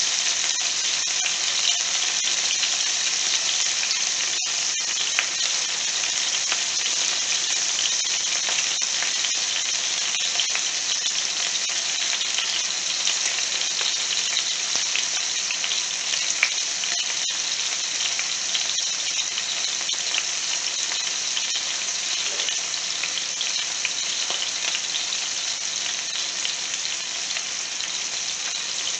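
Chunks of chicken frying in fat in a skillet, a steady sizzle with fine crackling throughout.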